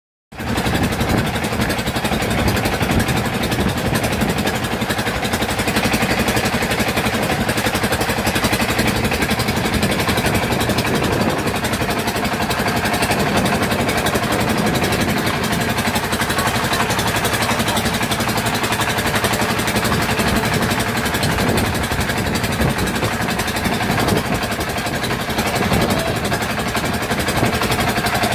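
A boat's engine running steadily, with a constant mechanical drone that neither rises nor falls.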